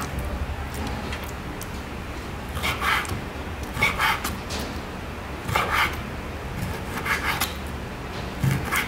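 Kitchen knife cutting raw beef into chunks on a wooden cutting board: short rasping strokes of the blade through the meat and against the board, about one a second from a couple of seconds in, over a steady low hum.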